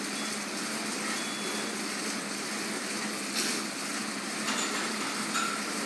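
Assault Bike air bike's fan whirring steadily as the rider pedals and works the handles hard, with a brief click about three and a half seconds in.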